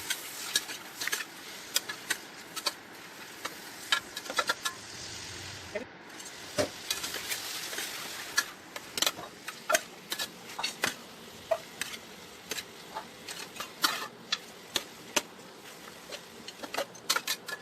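Marinated chicken pieces sizzling in hot oil in a pan, with a spatula knocking and scraping against the pan many times as they are stirred.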